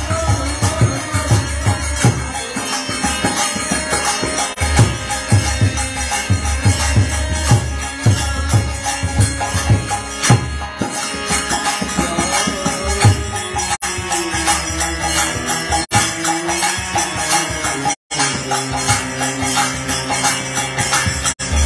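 Devotional kirtan music: a man singing with a harmonium, over a steady drum beat and jingling hand percussion. About halfway through the drum beats thin out, leaving held harmonium chords under the voice.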